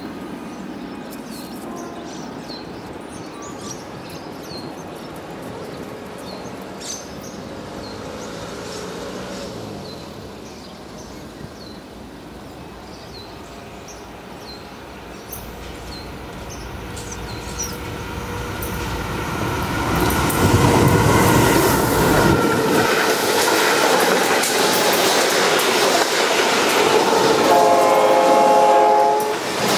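A consist of diesel-electric locomotives led by a C44aci approaches and passes close by. The engine and rail noise swells from a faint rumble to loud about two-thirds of the way in. A chord horn sounds briefly near the end as the locomotives go past.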